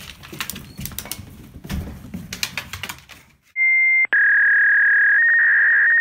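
Scattered clicks and rustling for about three and a half seconds, then a loud, steady, high electronic beep tone starts abruptly, breaks off for a moment half a second later, and resumes, holding on.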